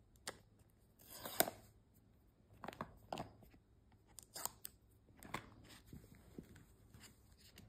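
Faint handling of a cardboard Apple Watch box: scattered scrapes, rustles and small taps as the inner tray is slid out of its sleeve. The loudest is a rustle about a second and a half in.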